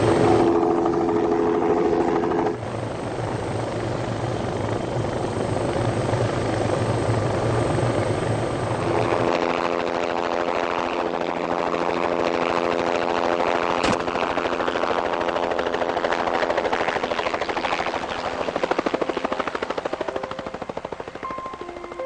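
Helicopter in flight, with a steady rapid rotor beat and engine drone. Its sound changes about nine seconds in, and there is a single sharp click near the middle.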